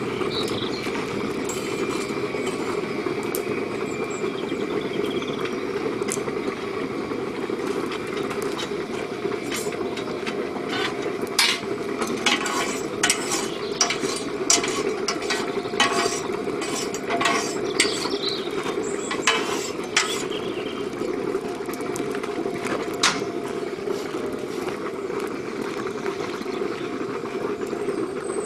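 Small electric blower running steadily, forcing air into a coal forge fire, with irregular metallic clinks and knocks of a steel bar working in the fire, most of them in the middle of the stretch.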